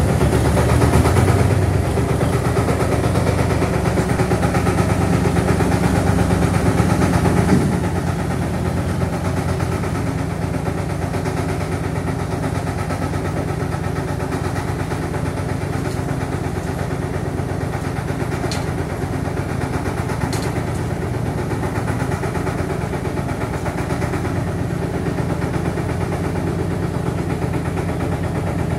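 Diesel engine of a self-loading concrete mixer running with a steady pulsing beat as the machine backs slowly down loading ramps. It works harder for the first seven seconds or so, then eases off to a quieter, even run.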